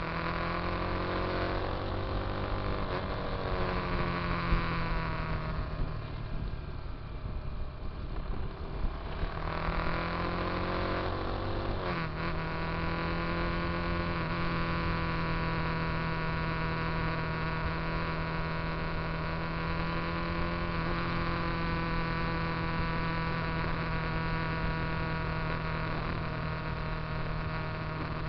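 Motorcycle engine heard from the rider's onboard camera, rising in pitch as it accelerates in the first few seconds and again about ten to twelve seconds in, then running at a steady pitch while cruising.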